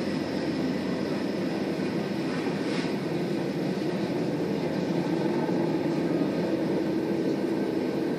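Freight train cars rolling past on the rails: a steady, even rumble of steel wheels as a covered hopper and then loaded oil tank cars go by, with one faint click about three seconds in.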